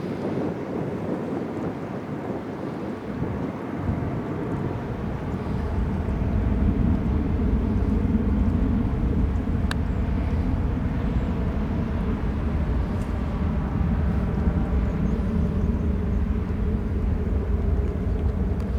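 Airbus A319 jet engines at takeoff thrust, heard in their jet blast: a steady rumble that deepens and grows louder about five seconds in, then holds.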